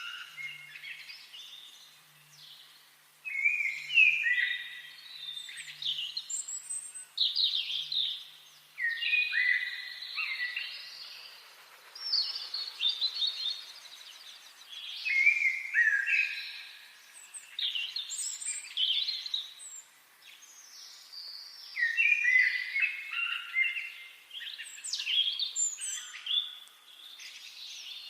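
Songbirds singing in a forest: a string of varied, quick warbling phrases, one after another with short pauses, with a rapid trill about halfway through.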